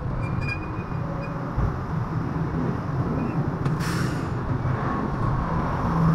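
Motorcycle engine running at low speed in traffic, a steady hum over road and wind noise. A short hiss about four seconds in.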